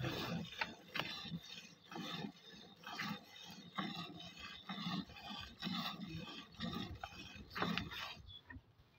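Hand milking into a steel bucket: rhythmic squirts of milk hissing into the bucket, about one a second, easing off near the end.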